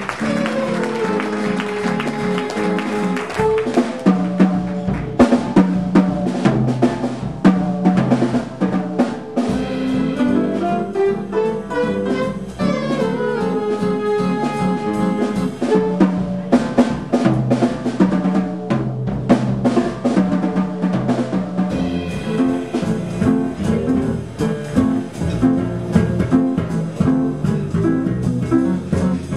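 Small jazz combo playing: drum kit keeping a steady beat under piano, saxophones and flute, with electric guitar and bass.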